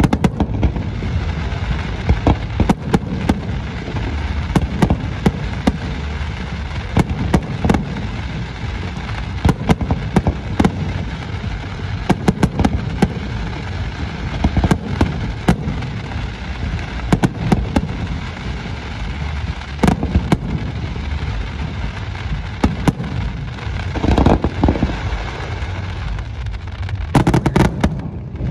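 Aerial fireworks display: shells and comets launching and bursting in a fast, irregular string of sharp bangs over a continuous low rumble, with denser flurries of reports near the end.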